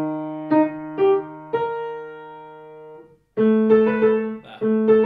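Acoustic grand piano playing the ending of a late-elementary piano piece: single notes and chords struck, one chord held and left to ring out, then after a short pause more notes and chords resume.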